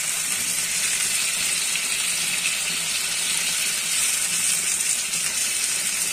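Onions, tomatoes, cashews and whole spices frying in hot oil in a steel pan: a steady, watery sizzle as the fresh tomatoes cook down.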